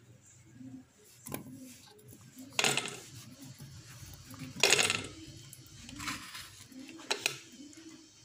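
A metal cooking pot clinking and knocking as boiled roots are handled in it: four or five sharp clinks, the loudest near the middle.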